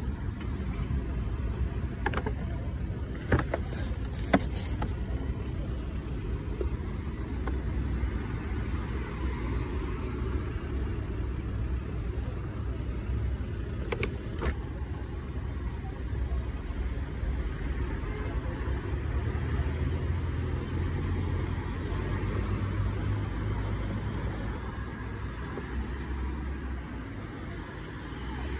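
Steady low rumble of road traffic passing on a street, swelling for a few seconds past the middle, with a few sharp clicks and light handling noises near the start and about halfway through.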